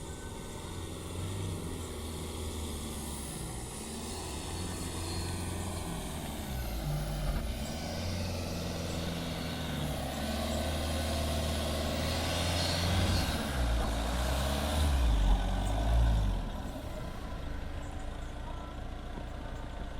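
Jeep Compass Trailhawk's engine labouring through sand on a dune climb. It builds up louder and heavier, peaks about three quarters of the way through, then eases back near the end.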